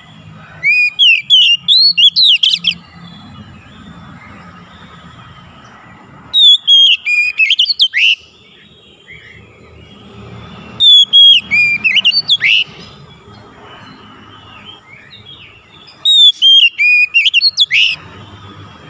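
Oriental magpie-robin (kacer) singing: four loud phrases of rich whistled notes, each lasting about two seconds, with pauses of a few seconds between them.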